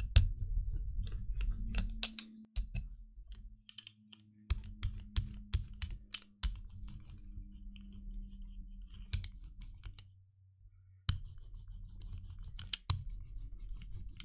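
A rubber brayer rolling acrylic paint across a gel printing plate, making uneven tacky clicking and crackling strokes with short pauses between passes.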